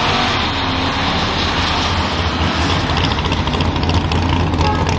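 2012 Chevrolet Caprice PPV's LS V8 at full throttle during a drag strip pass, a steady, loud engine and exhaust noise.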